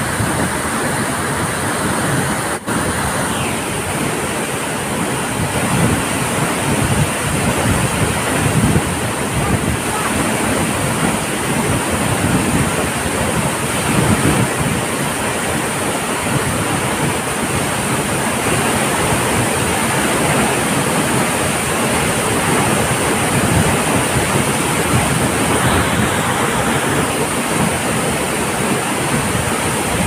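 Large waterfall plunging onto rocks: a loud, steady rush of falling water and spray, with gusts of wind buffeting the microphone.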